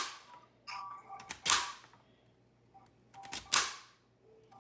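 Chef's knife chopping through a peeled yam and striking a plastic cutting board: three sharp chops, about a second and a half to two seconds apart.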